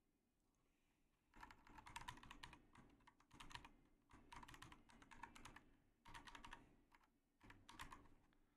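Faint computer keyboard typing: rapid keystrokes in about five short runs with brief pauses between them, starting about a second and a half in.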